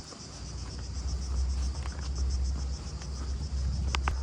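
Cicadas droning in the summer heat over a steady low rumble, with two short clicks near the end.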